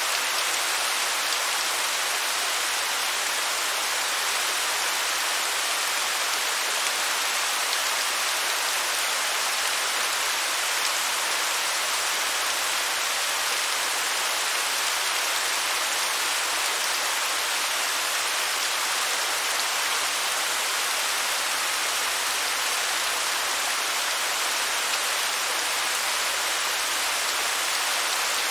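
Waterfall cascading, a steady even rush of falling water that sits mostly in the higher range and has little deep rumble.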